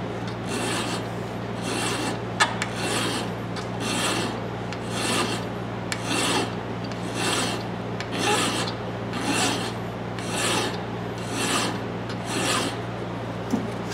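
Flat hand file rasping back and forth across a steel hammer claw held in a vise, in steady strokes about once a second, taking off what looks like welder spatter or a burr on the claw.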